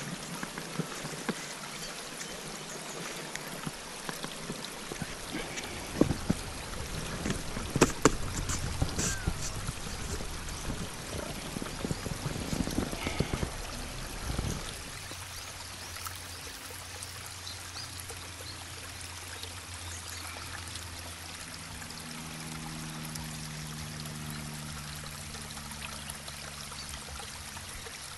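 Clicks, knocks and rustles of a folding camp chair's poles and mesh seat being handled and set up over a steady rushing noise. The handling stops about halfway, and from then on a low steady hum joins the rushing.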